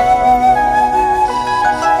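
Background music: a gentle melody on a flute over soft accompaniment.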